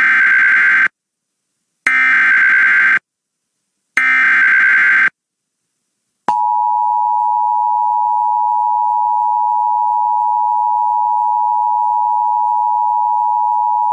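Emergency Alert System tones: three short bursts of SAME digital header data, about a second each, then a steady two-tone attention signal held for about eight seconds. Together they announce an emergency alert, here a National Weather Service severe thunderstorm warning.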